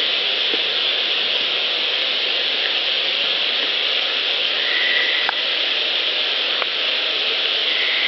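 Steady loud hiss of an amplified field recorder's noise floor, with a few faint ticks and a couple of short faint high chirps.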